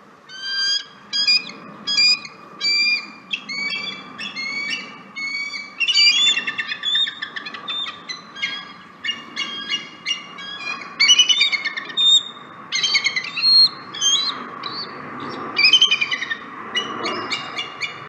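Bald eagle calling: a long series of high, piping chirps, at first about two a second, then in quicker chattering runs.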